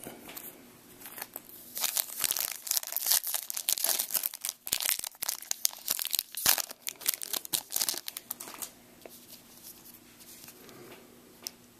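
Foil wrapper of a baseball card pack being torn open and crinkled by hand: several seconds of dense crackling and rustling that die down about three-quarters of the way through, leaving soft handling of the cards.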